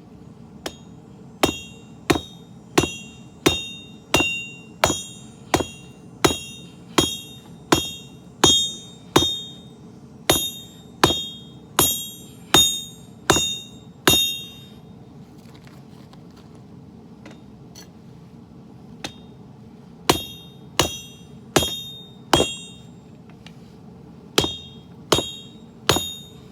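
Hand hammer striking steel on an anvil while forging a sword blade: a long run of even, ringing blows at about one and a half a second, a pause, then two short groups of three or four blows. Each blow rings briefly with a high metallic tone.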